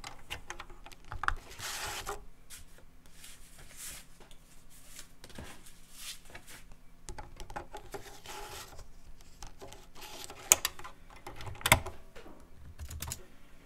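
A Teac FD-55GFR 5.25-inch floppy drive and disk being handled: scattered mechanical clicks and short rasping bursts over a faint steady hum, with two sharp clicks about ten and a half and eleven and a half seconds in.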